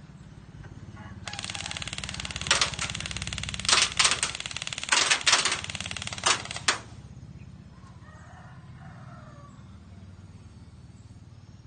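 Airsoft BB gun firing rapidly on full auto in one long run of several seconds, with a number of louder sharp cracks mixed into the rattle; it starts about a second in and cuts off suddenly a little past halfway.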